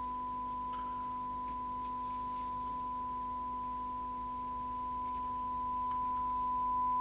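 Steady test tone from a signal generator, demodulated and played through a Bush DAC10 valve radio's loudspeaker. It grows louder over the last couple of seconds as the coils are tuned toward the peak during alignment.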